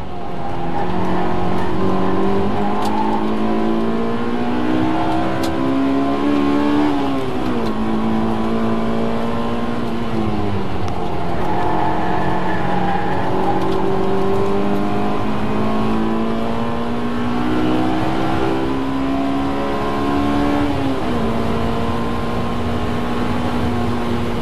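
Honda S2000's four-cylinder VTEC engine, heard from inside the cabin, running at high revs under hard driving on track. Its pitch climbs steadily and drops back sharply three times, about seven, ten and twenty-one seconds in, at gear changes or lifts off the throttle.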